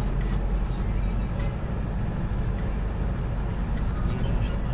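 Kia Bongo 3 truck on the move: steady engine and road noise with a low rumble.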